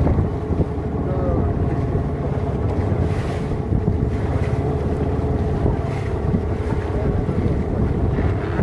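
An open wooden passenger boat under way on choppy water. Its engine runs steadily under heavy wind buffeting on the microphone and water splashing along the hull.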